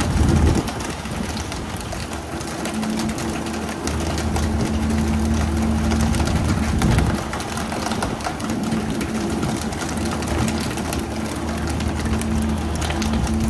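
A boat's engine running with a steady low hum over a noisy rushing background; the hum weakens briefly about half a second in and again around seven seconds.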